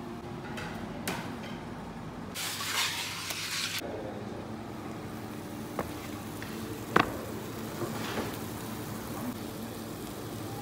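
Food sizzling briefly in a hot cast-iron pan, a dense hiss lasting about a second and a half, with a few sharp clinks and knocks, the loudest about two-thirds of the way through.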